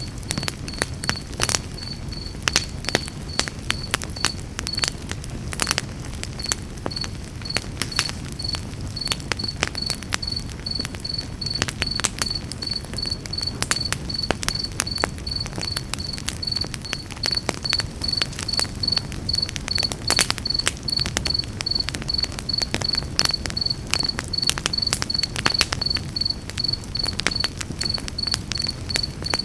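Campfire crackling and popping in sharp, irregular snaps over a low rumble of burning wood, with a cricket chirping steadily at about two chirps a second.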